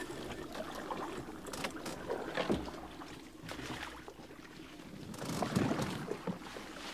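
A canoe being paddled and pushed through dense alder brush: leaves and branches rustling and scraping against the boat and paddler in irregular crackles and snaps, with paddle strokes in the water. The sounds get louder about two and a half seconds in and again a little over five seconds in.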